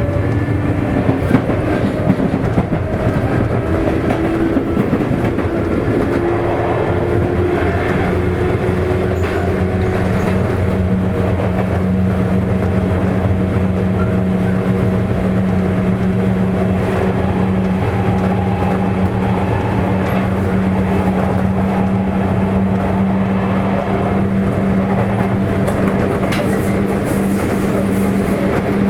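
Sotetsu 8000 series electric train, refitted with a Hitachi IGBT-VVVF inverter, running along the line, heard from inside a motor car. Traction motor whine rises slowly in pitch for the first ten seconds or so, then holds at a steady pitch over the rumble of wheels on rail.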